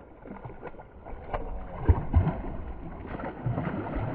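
River water splashing and sloshing close to the microphone, with low knocks and rumbles from handling or wind on the mic. The loudest knocks come about two seconds in.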